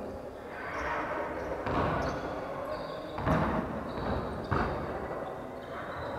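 A basketball bounced on a wooden gym floor, a few separate thuds a second or so apart that echo in the hall, with voices murmuring in the background.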